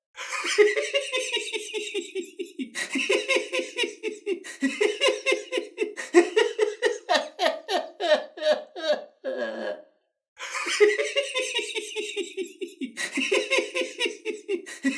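A recording of a person laughing uncontrollably, in rapid breathless bursts of laughter, looped as a wake-up alarm sound. It cuts out briefly about ten seconds in and starts over.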